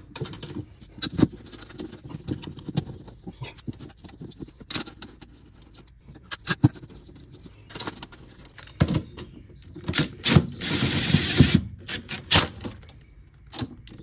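Metal clinks and rattles of bolts and hand tools as the stator of a washing machine's direct-drive motor is bolted back onto the tub, with a dense rattling run of about a second and a half near ten seconds in.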